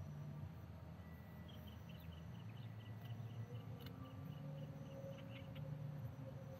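Faint evening outdoor ambience: an insect gives a run of evenly spaced high chirps, about four a second, for a few seconds over a low hum, with a single faint click about four seconds in.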